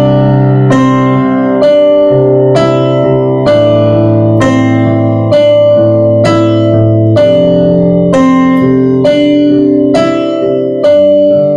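Keyboard playing a piano sound: a repeated four-note melody (D–C–D–E) over sustained chords of a C–Am–F–G progression with bass notes, a new note struck about once a second.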